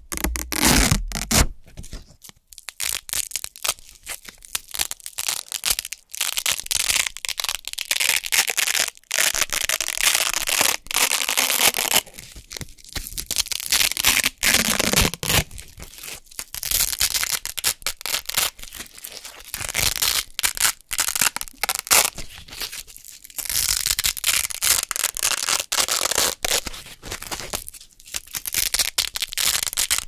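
Hook-and-loop fastener circles being peeled apart over and over close to the microphone: a crunchy, crackling rip with each pull, broken by a few short pauses.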